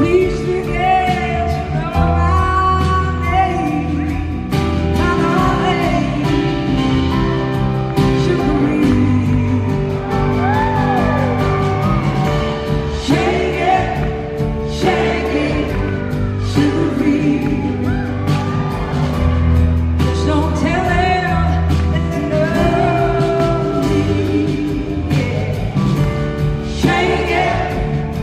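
Live blues-rock band playing, with a woman's lead vocal over electric guitar, bass and drums.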